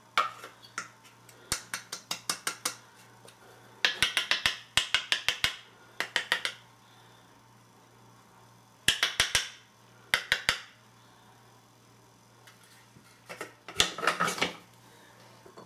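A metal spoon clinking and scraping in quick runs of clicks as ground coffee is scooped from a wooden grinder drawer and tipped into a glass brewer bowl, with short pauses between the runs.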